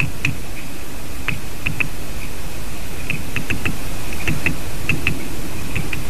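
Great spotted woodpecker pecking at wood: about sixteen sharp taps, irregular and often in small clusters, over a steady background hiss.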